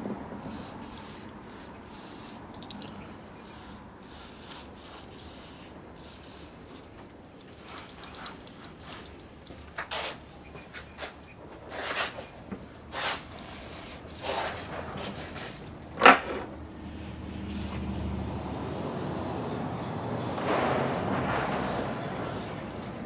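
Rubbing and scraping on metal parts of an old benchtop mini lathe, with scattered clicks and knocks. One sharp, loud knock comes about two-thirds of the way in, followed by a low steady hum that swells near the end.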